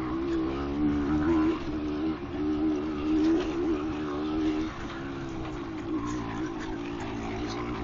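Yamaha DT200R's single-cylinder two-stroke engine running while riding, its pitch rising and falling with the throttle and dipping briefly about two seconds in and again near five seconds.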